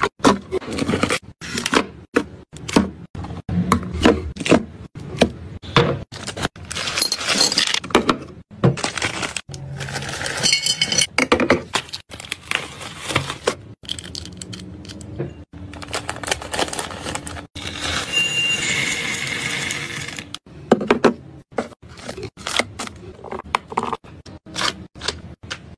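Candy packaging being handled close up: plastic wrappers and boxes crinkling and scraping, with many sharp taps and clatters as packs and sweets are set down in containers.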